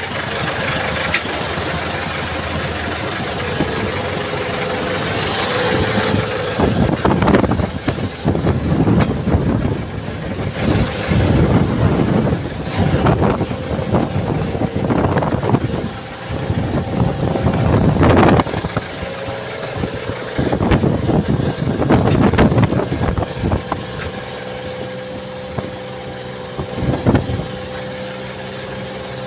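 Outrigger fishing boat's engine running steadily, under repeated rushes of waves slapping and splashing against the hull and outrigger in strong wind.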